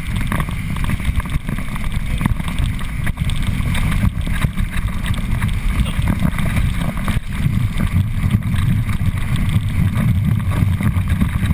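Wind buffeting a camera microphone mounted on a towed inflatable tube, with water rushing under the tube as it skims across the water: a steady low rumble with a few brief slaps.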